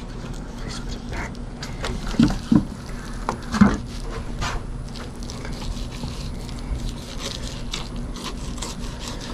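Fillet knife scraping along the skin of a redfish fillet as the meat is cut free of the skin: a soft rasping with faint scattered ticks over a low steady hum. A few short squeaky sounds come about two and three and a half seconds in.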